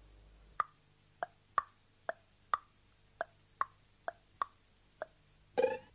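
Cartoon sound effects: a run of about ten short, pitched plops at an uneven pace of roughly two a second, followed near the end by a brief squeak.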